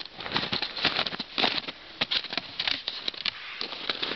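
Footsteps crunching in snow, a quick irregular run of crunches and crackles.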